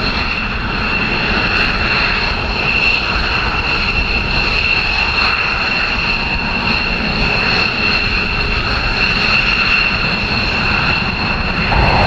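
F-15J fighter's twin turbofan jet engines running at low taxi power: a steady high-pitched turbine whine over a low rumble.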